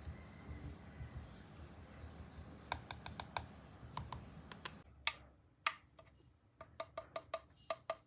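Typing on an Akko Mod007 aluminium-case mechanical keyboard with lubed Akko CS Rose Red linear switches and PBT double-shot ASA-profile keycaps. A few scattered keystrokes come a third of the way in, then one louder stroke past the middle, then steady quick typing of about six keys a second near the end.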